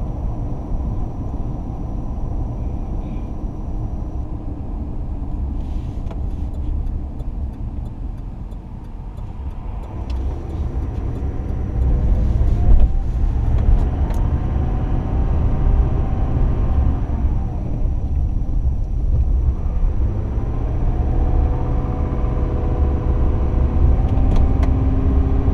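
Pickup truck driving, heard from inside the cab: a steady low engine and road rumble that grows louder about halfway through as the truck picks up speed, with the engine's pitch rising near the end.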